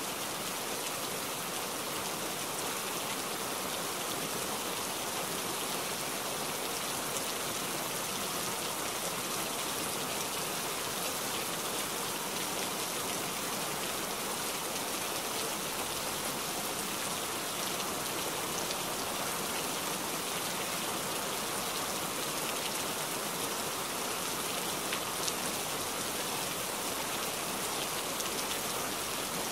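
Rain falling on shallow floodwater and wet ground, a steady even hiss with no break.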